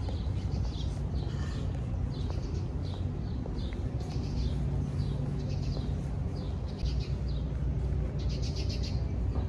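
Small birds chirping repeatedly, with short quick trills, over a steady low rumble.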